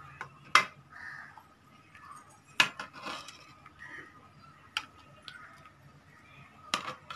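A steel ladle clinking against the pan and bowl while hot milk is ladled out and poured over cornflour and milk powder, with four sharp clinks about two seconds apart.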